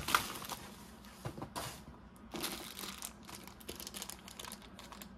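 Plastic packaging bags and wrapping being handled and crinkling as accessories are taken out of a pouch: a string of irregular soft crackles, loudest just after the start.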